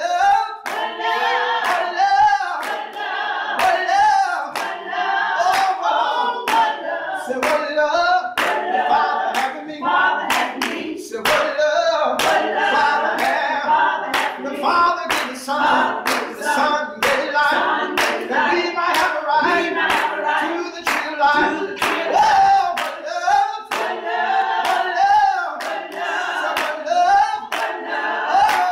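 Group of voices singing a gospel song with steady hand clapping on the beat, with no bass instruments underneath.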